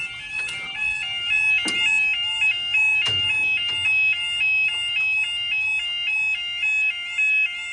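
Railway level crossing warning alarm sounding while the barriers are down: a loud, steady two-tone warble, stepping quickly back and forth between a high note and a lower note. A couple of sharp knocks come in over it in the first few seconds.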